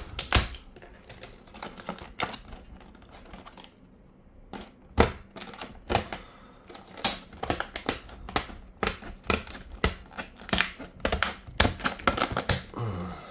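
Heavy-duty snips cutting through hard plastic packaging: a run of sharp, irregular snaps and crackles, with a loud snap about five seconds in.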